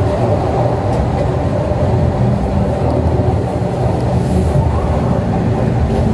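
Hungerburgbahn funicular car running along its track, heard from inside the cabin: a steady low rumble of wheels and running gear.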